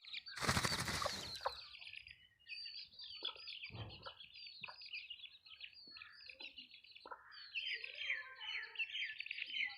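A brood of chicks peeping continuously, many high chirps overlapping. A loud rustling burst comes about half a second in, and a low thump about four seconds in.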